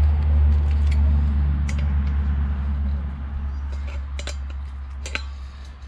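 A loud low rumble, strongest at the start and slowly fading, with a few sharp metallic clicks of an adjustable spanner on the brass Y piece of a refillable LPG bottle's filling valve.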